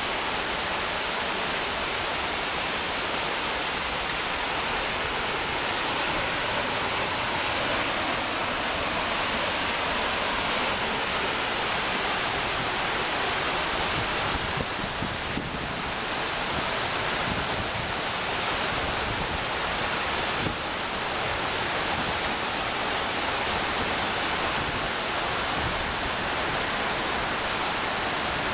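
Waterfall and cascades rushing over large boulders: a steady, dense wash of white water.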